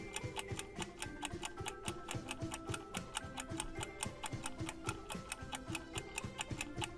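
Clock-ticking sound effect, about four ticks a second, marking a quiz countdown timer, over soft background music.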